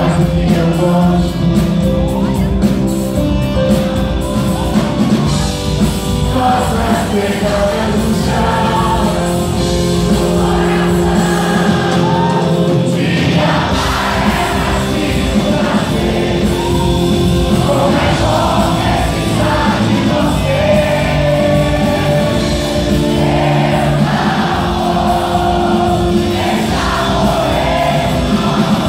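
Live rock band playing a song: drums, bass, electric guitar and keyboard, with a male lead singer whose sung phrases come in about six seconds in.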